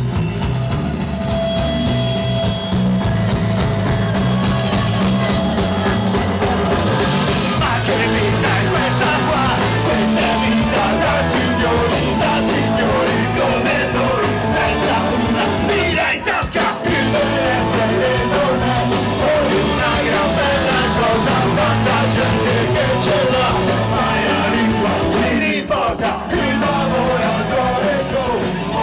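Live ska-punk band playing loudly, with a singer over electric guitar, bass and drums.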